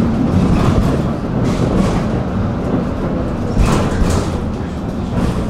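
Tram running along its rails, heard from inside the car: a steady low rumble with a few sharp clacks, two of them about two-thirds of the way through.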